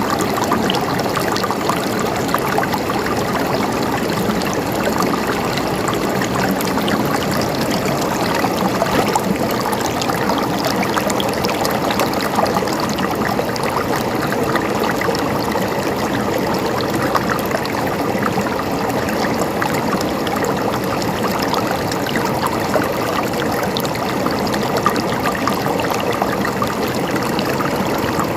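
River water flowing steadily over rocks, a constant rushing and burbling with fine splashy crackle.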